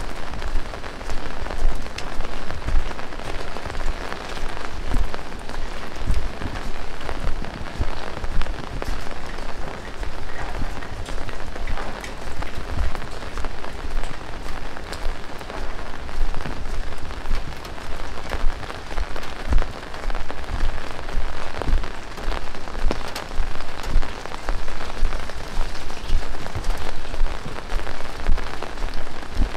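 Heavy rain falling, a dense steady hiss dotted with many sharp close drop hits and dull low thuds.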